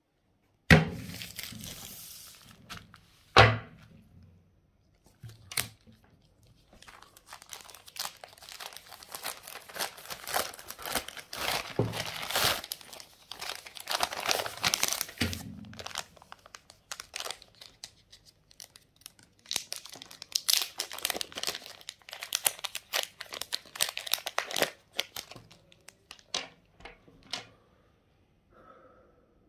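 A plastic-and-paper packaging sleeve being handled and torn open, with long stretches of crinkling and rustling. There are two sharp knocks in the first few seconds and a few small clicks near the end.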